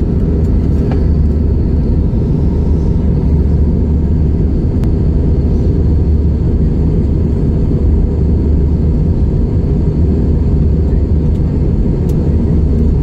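Steady low rumble of an airliner cabin in flight: engine and airflow noise heard inside the cabin over the wing.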